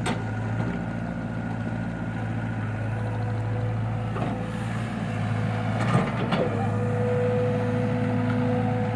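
Backhoe loader's diesel engine running steadily while working, with a couple of sharp metal clanks a little past the middle and about six seconds in. After the second clank a steady whine joins the engine note.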